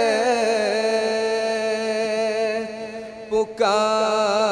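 Men's voices chanting a naat with no instruments, drawing out a long melismatic sung note over a steady low tone. The voices break briefly about three seconds in for breath, then come back in.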